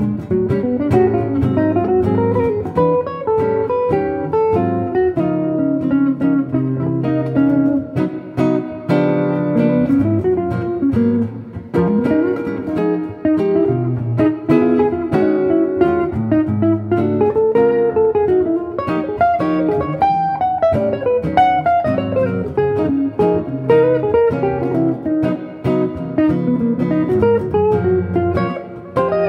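Two hollow-body electric guitars playing a duo, one picking a single-note melody that rises and falls while the other plays chords underneath.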